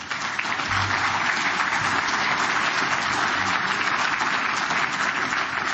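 Conference audience applauding, steady clapping.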